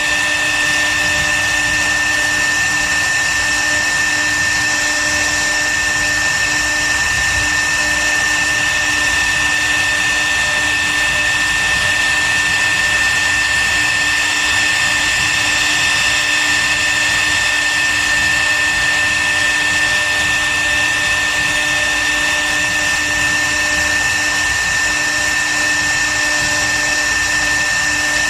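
CNC wood router's spindle running steadily with a constant high whine as it carves wood.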